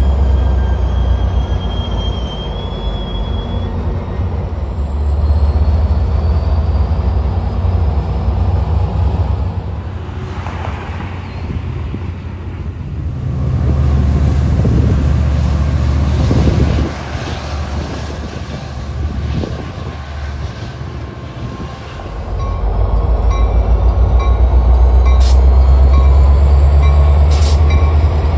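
Metra commuter trains' diesel-electric locomotives running at a station: a deep, steady engine drone. It eases off partway through while railcars roll past with wheel clatter and thin high wheel squeal. About two-thirds of the way in it swells loud again as a locomotive throttles up and moves off.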